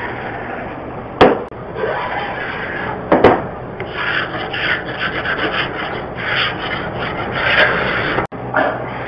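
Hand-held sanding block rubbed back and forth over a painted wooden door, stripping the old paint down to bare wood. From about four seconds in it goes in quick, even strokes of about three a second. Two sharp knocks come at about one and three seconds in.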